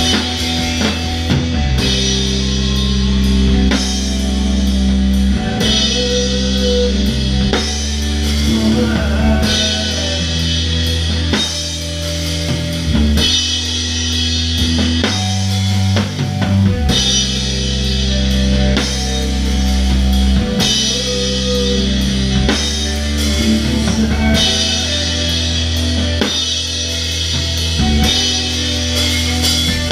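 Live rock band playing, with a Ludwig drum kit heard up close: drum strokes and cymbal wash over sustained low guitar and bass chords that change every few seconds.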